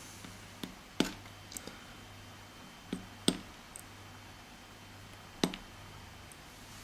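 A few light, sharp clicks and taps from small lock parts and tools being handled on a table while a pin-tumbler lock is taken apart, the clearest about one second, three seconds and five and a half seconds in.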